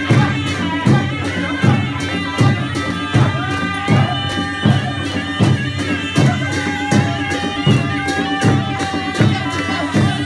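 Nepali naumati panche baja band playing a dance tune: a shehnai carries a nasal reed melody, holding one long note in the middle, over a steady drum beat of a little more than one stroke a second and clashing cymbals.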